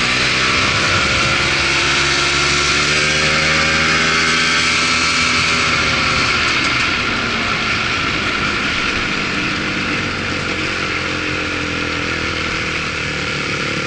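Polaris Trail Blazer ATV engine running while riding a dirt trail, its pitch rising and falling with the throttle, easing off and running quieter about seven seconds in.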